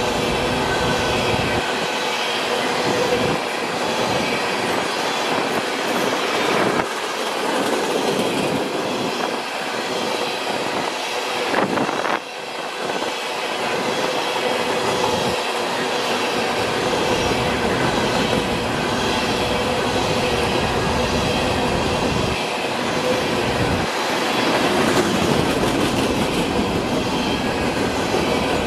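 Freight train of empty coal hopper cars rolling past: steady noise of steel wheels on rail, with the clatter of the cars and thin steady ringing tones from the wheels over it.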